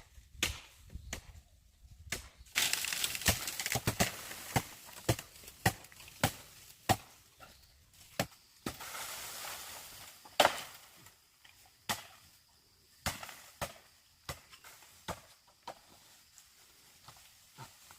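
Bamboo being chopped by hand: a series of sharp knocks, roughly one a second, with two longer rasping stretches, a few seconds in and near the middle.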